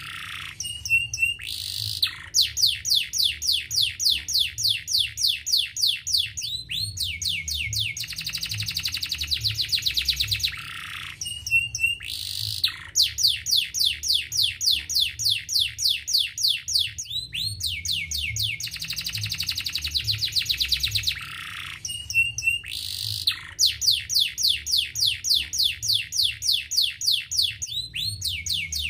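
Domestic canary singing: long rolls of rapid down-slurred notes, about six a second, broken by short high trills and single chips, the same song phrase returning about every ten seconds.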